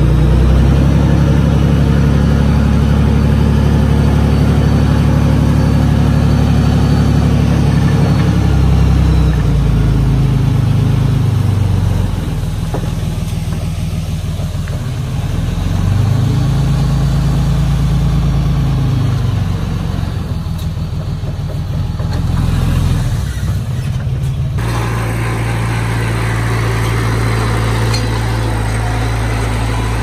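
Bulldozer's diesel engine working hard and steady, easing off about nine seconds in, then revving up and back down around the middle. About 25 seconds in the sound switches abruptly to a steadier, even engine note.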